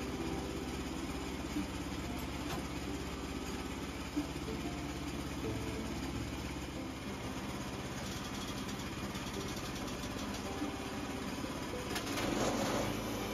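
Small engine on a portable bandsaw sawmill idling steadily, with a couple of light knocks while the white oak log is handled on the mill bed. A louder rushing noise rises near the end.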